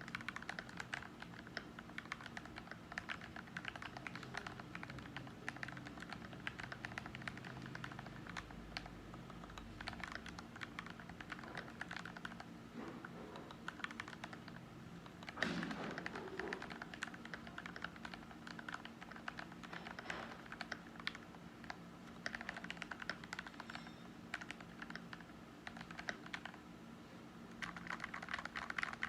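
Continuous typing on an FL680 mechanical keyboard with lubed Gateron Milky Yellow Pro linear switches and PBT keycaps: a dense, steady run of keystrokes. One keystroke about halfway through is louder than the rest.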